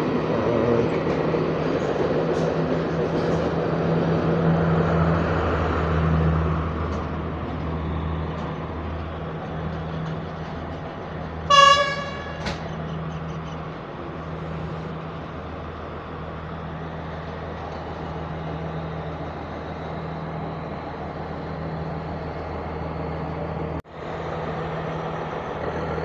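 Diesel multiple unit's engine running with a steady low drone as the train pulls past, loudest for the first six seconds and then easing off. A short horn toot sounds about twelve seconds in, with a fainter second one just after.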